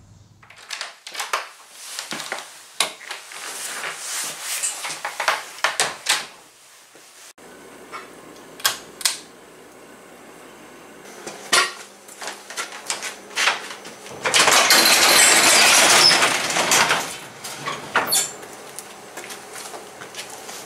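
Metal tools and parts clinking and clattering in short knocks. Past the middle comes a loud rushing hiss of about three seconds.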